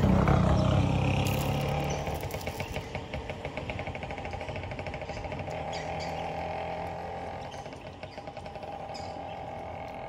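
A motor vehicle's engine passes close by at the start and fades away over about two seconds. A steady, fast rattling trill follows.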